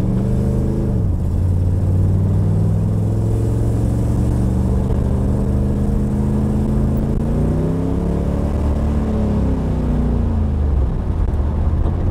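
Camaro engine heard from inside the cabin while driving with a failing 700R4 automatic transmission, which the owner believes has burnt clutch packs. The revs drop about a second in as it makes the 1-2 upshift, then hold steady, then climb and fall again around eight seconds in.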